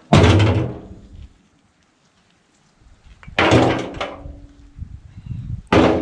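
Pieces of scrap metal thrown down onto a pile during sorting: three heavy clanging impacts, near the start, about halfway through and at the end, each ringing out for about a second.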